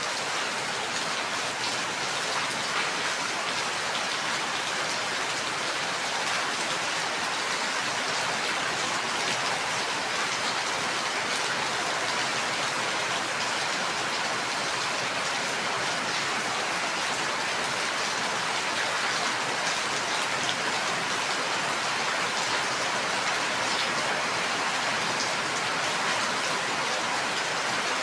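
Steady rain falling, a constant even hiss with fine scattered drop ticks and no thunder.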